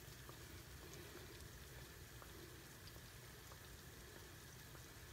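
Faint, steady sizzle of hot oil as crescent-dough pies fry in a cast-iron skillet, with scattered small pops.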